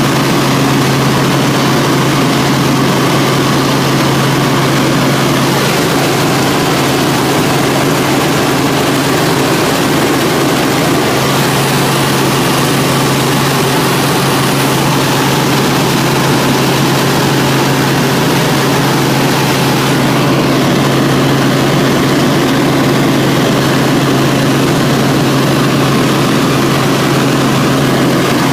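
Helicopter engine and rotor noise heard from inside the cabin in flight: a loud, steady drone with a strong low hum.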